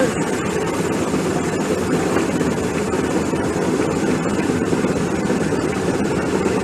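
Helicopter rotor and turbine engine noise, a loud steady roar.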